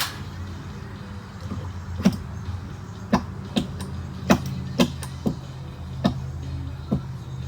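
About eight sharp knocks, irregularly spaced half a second to a second apart, starting about two seconds in, over a steady low hum.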